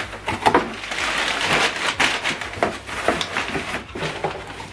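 Crumpled kraft packing paper crinkling and rustling as it is pulled out of a cardboard box, with the box's cardboard flaps scraping and knocking, in an irregular string of crackles.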